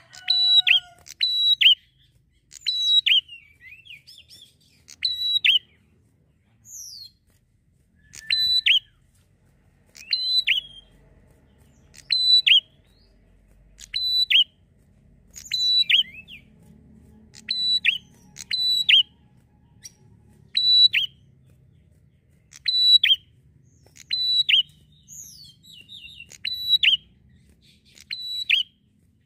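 Prinia (prenjak) singing: short bursts of sharp, high chirps, each dropping quickly in pitch, repeated about every two seconds.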